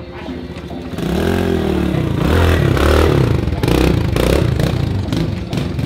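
Kawasaki KLX110 pit bike's small four-stroke single being revved while ridden. It gets louder about a second in, and its pitch rises and falls again and again with each blip of the throttle.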